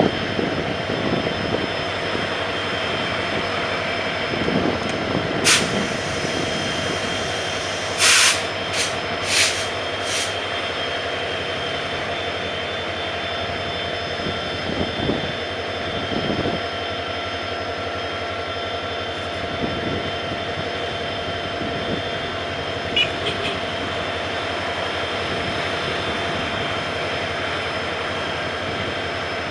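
CC 205 diesel-electric locomotive engine running steadily with a constant hum. Short sharp hisses of air cut in once about five seconds in and four times in quick succession around eight to ten seconds in.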